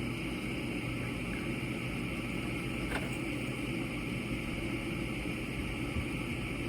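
Gas furnace running a steady fan hum during its ignition sequence, with the igniter on and the gas valve not yet open. There is a faint click about three seconds in.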